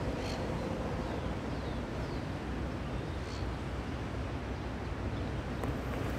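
Wind buffeting the microphone: a steady low rumble, with a few faint high chirps and a light click near the end.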